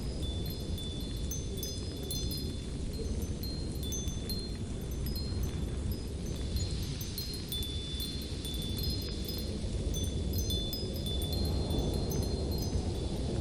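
Steady low wind, swelling a little about halfway through and again near the end, with a light, high tinkling of chimes scattered over it.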